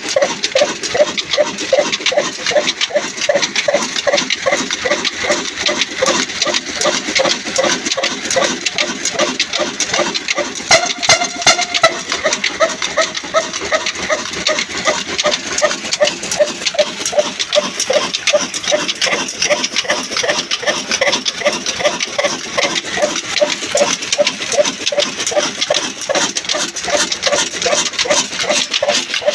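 Super Nafees 22 horizontal diesel engine running steadily, with a regular beat of exhaust pulses.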